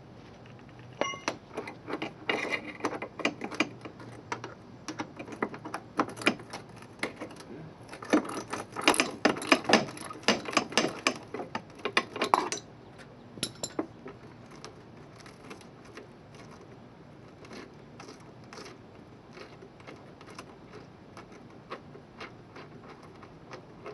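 Metal hand tools clicking and clinking against metal in quick, irregular runs, densest about eight to twelve seconds in, then stopping except for a few faint clicks.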